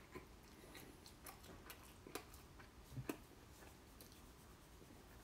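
Near silence: room tone with a few faint, short clicks, the clearest about two and three seconds in.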